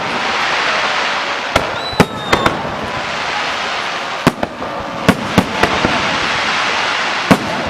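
Fireworks display: a string of sharp bangs from shells bursting, about ten in all at uneven intervals, over a continuous hiss.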